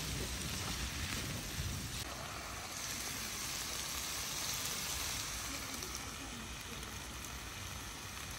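Cauliflower, potatoes and tomatoes sizzling in a frying pan over an open fire, a steady hiss.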